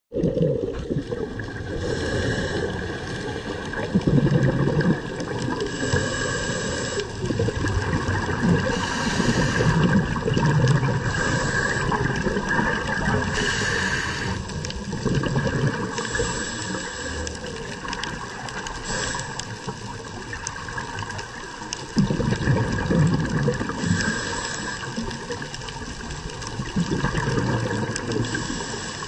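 Underwater sound of a scuba dive: a diver's exhaled regulator bubbles, swelling in loud surges several seconds apart over a steady hiss.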